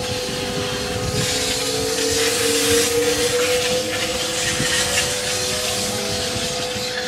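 Konan Railway 7000-series electric train running away along the track, with steady and gently gliding motor tones and a broad hiss that swells for a few seconds in the middle and then eases off as the last car goes by.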